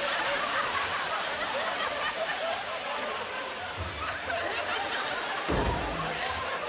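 Studio audience laughing, many voices at once, with a short low thump about five and a half seconds in.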